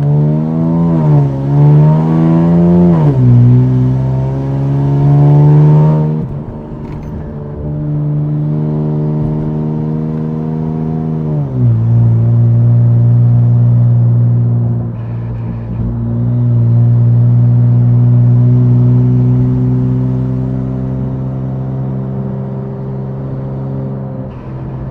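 Infiniti Q60's twin-turbo V6 pulling hard through the gears, heard from inside the cabin. Its pitch climbs and drops back at each shift over the first six seconds, then settles into a steady cruise. A second pull from about eight seconds ends in a sharp drop near twelve seconds, followed by steady cruising.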